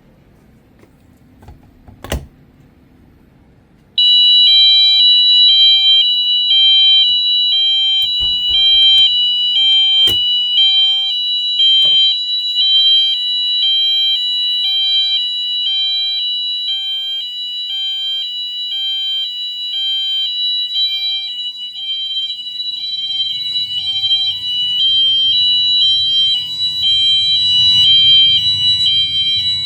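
A sharp click about two seconds in, then Wheelock MT multitone fire alarm horns start sounding the hi-lo tone, a loud alarm alternating between two high pitches that carries on steadily.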